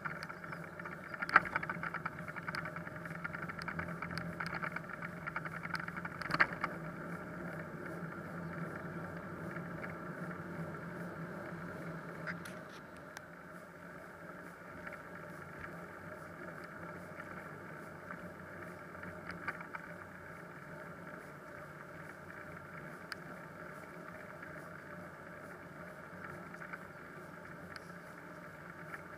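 Steady riding noise picked up by a bicycle-mounted camera on a wet cycle path: road and wind rush with a faint low hum, and a few sharp knocks from bumps, the loudest about a second and a half in and about six seconds in. About twelve seconds in the hum fades and the noise gets quieter.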